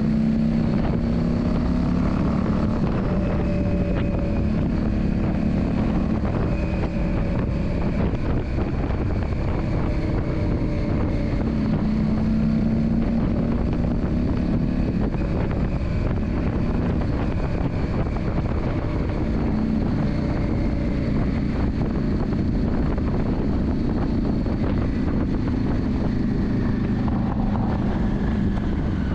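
Yamaha Drag Star 400's V-twin engine running under way, its pitch shifting gently with no sharp revs, over steady wind noise on the microphone.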